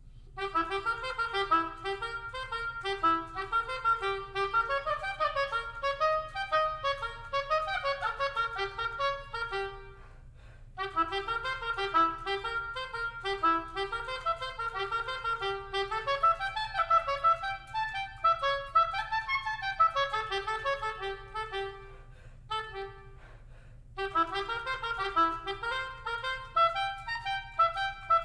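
Solo oboe playing an unaccompanied line of quick, running notes. It plays in phrases, broken by two short pauses: one about ten seconds in and one a little past twenty seconds.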